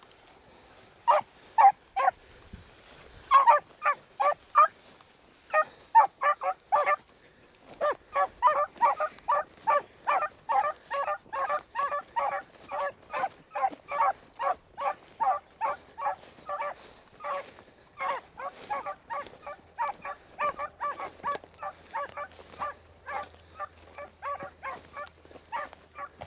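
A pack of beagles baying as they run a rabbit on scent: a few scattered cries at first, then from about eight seconds in an unbroken chorus of overlapping bawls from several hounds.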